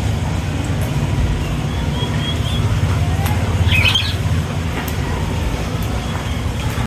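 Birds chirping, with a few short high chirps and a louder squawking call about four seconds in, over a steady low rumble.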